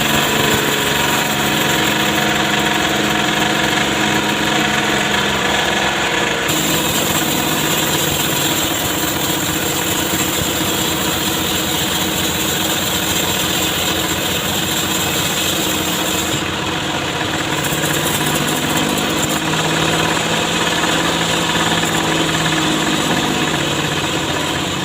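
Petrol engine of a wood saw running steadily and loudly, with small changes in its sound about six seconds in and again about sixteen seconds in.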